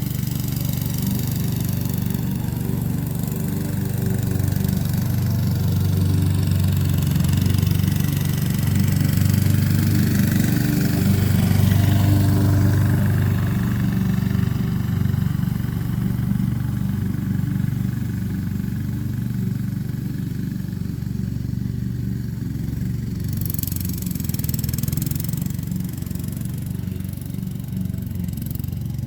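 Honda HRX217 walk-behind mower's single-cylinder engine running steadily at mowing speed, a little louder around the middle.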